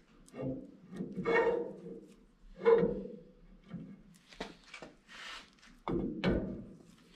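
Steel axle shaft clunking and scraping against the hub and differential as it is pushed in and turned by hand to find the side gear's splines: a handful of knocks, several with a short metallic ring, a stretch of scraping in the middle, and two sharp knocks near the end.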